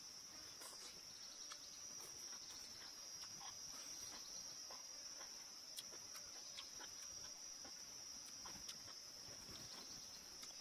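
Faint steady high-pitched insect chirring, like crickets, with scattered soft clicks and smacks of someone chewing noodles.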